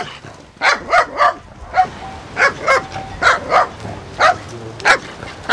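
A dog barking over and over: about ten short, sharp barks, several coming in quick pairs.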